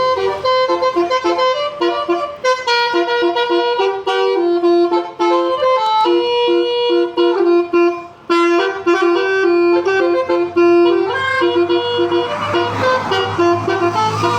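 Basuri musical horn on a vehicle playing a melody, a run of short notes and some longer held ones, with a brief break about eight seconds in.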